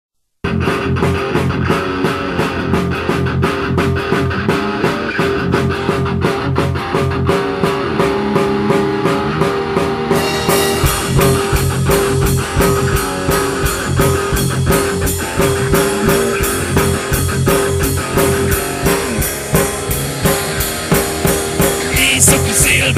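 Rock band playing an instrumental passage on guitar and drum kit, a rehearsal-room recording. It starts abruptly at the very beginning with a fast, steady drum beat, and the sound gets fuller with deeper bass about ten seconds in.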